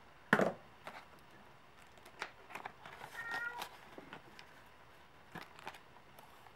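A house cat meows briefly about halfway through, among scattered light clicks and rustles. A sharp knock near the start is the loudest sound.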